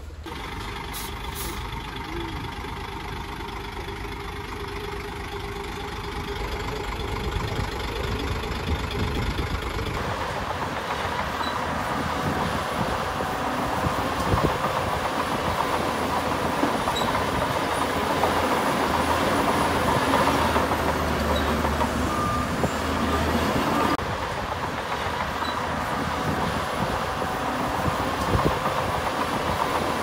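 Heavy diesel earthmoving machinery running steadily under work, its sound changing abruptly about ten seconds in and again near the end.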